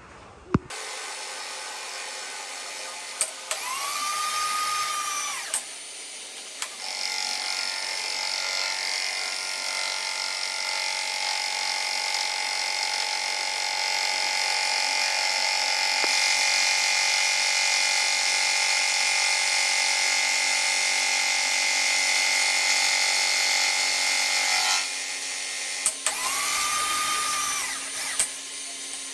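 An electric power tool running with a steady high whine, louder and harsher from about seven seconds in until about twenty-five seconds. Two short whines that rise and then fall in pitch come near four seconds and again near the end.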